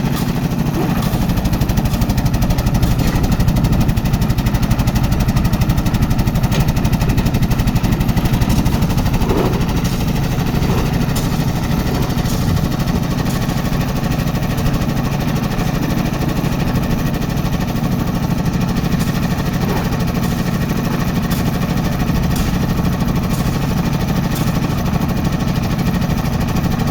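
Engine of a concrete mixer and lift machine running steadily under load, a loud continuous chugging with a fast even pulse.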